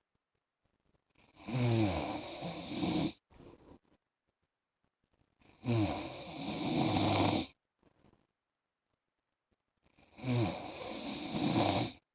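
A man snoring in his sleep: three long snores about four seconds apart, each lasting about two seconds and starting with a falling pitch, with near silence between them.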